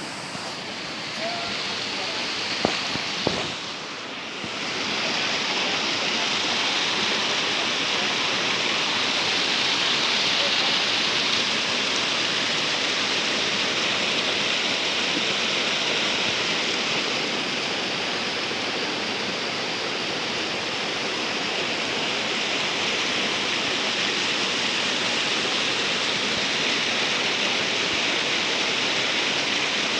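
Steady rush of water from a waterfall, with two short clicks about three seconds in; the rush grows louder about five seconds in and stays level after.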